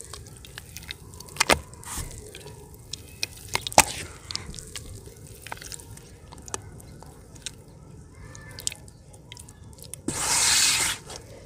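Hands squeezing and stirring crumbled yellow dirt in a bucket of muddy water: wet squishing and dripping, with a few sharp clicks in the first few seconds. About ten seconds in comes a loud splashing swish, lasting about a second, as a hand sweeps through the water.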